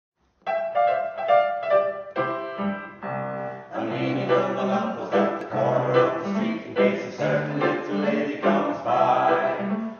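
Title music with singing: it starts just after the beginning with separate pitched notes and grows fuller about four seconds in.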